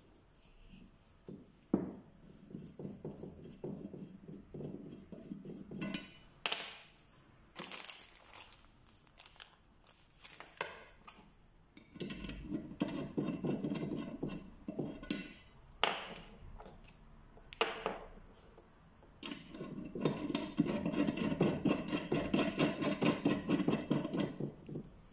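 Stainless steel dent-repair rods and metal tips being handled: sharp metal clicks and clinks, with three longer stretches of fast, even rattling.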